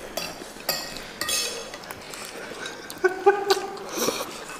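Metal spoons and forks clinking against ceramic bowls while noodles are eaten: several separate sharp clinks with a short ring.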